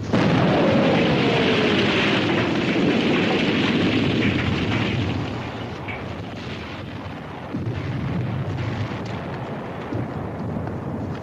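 Battlefield sound effect: a loud explosion at the start, with a tone sliding down in pitch over its first few seconds. It dies to a lower rumble about five seconds in, with a few small knocks.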